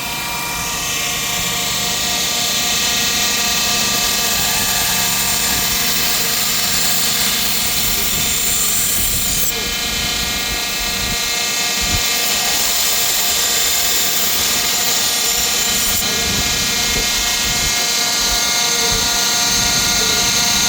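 Belt grinder running steadily while steel is ground on it, with a constant motor hum under a hiss of metal on the belt that shifts as the pressure changes.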